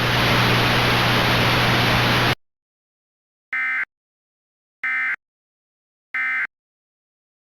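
Static hiss with a low hum that cuts off suddenly after about two seconds. After a short silence come three short, identical warbling data bursts about 1.3 seconds apart: the Emergency Alert System end-of-message (EOM) code that closes the alert.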